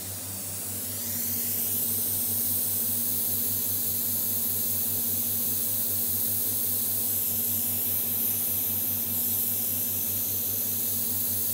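CNC router's vacuum suction bed pump running: a steady, loud hiss with a low hum beneath, the high whistle in it drifting in pitch now and then.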